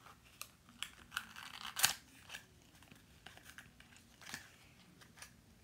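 Small plastic packaging on a miniature toy item picked at and torn open by fingers and fingernails: irregular crinkles and small tearing sounds, the loudest a little under two seconds in.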